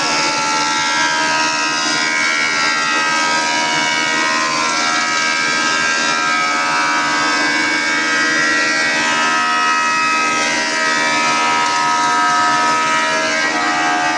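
Thickness planer running under load as boards pass through it, a loud, steady whine of several tones.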